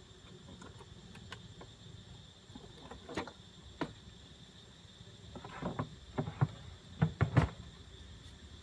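A run of short, irregular clicks and scuffs, a few at first and then a quick cluster of louder ones about seven seconds in, over a faint steady background hiss.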